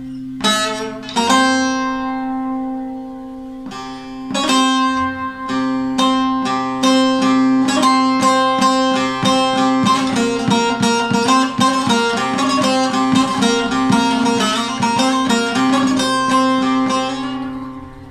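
Solo bağlama (Turkish long-necked lute) with a deep, bass-voiced bowl, playing a Barak tune. A few struck chords ring out, then a quick run of plucked notes plays over a steady drone string, and the sound fades near the end.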